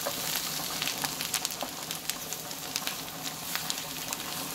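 Chopped onions and spices frying and sizzling in a nonstick frying pan, with short clicks and scrapes of a spatula stirring them.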